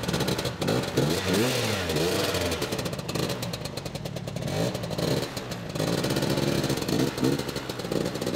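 Vintage two-stroke scooter engine revving up and down several times, then pulling away near the end.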